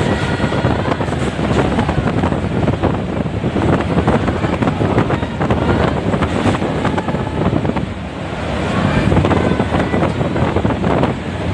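Passenger train running at speed, with wheels clattering on the rails and wind rushing against the microphone at an open window.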